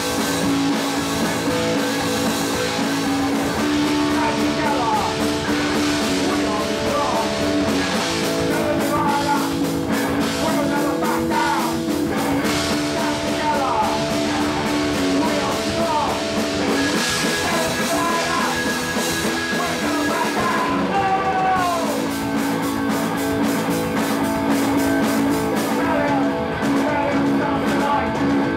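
Punk rock band playing live: distorted electric guitars, bass and drum kit, loud and unbroken, with sliding notes through the middle of the passage.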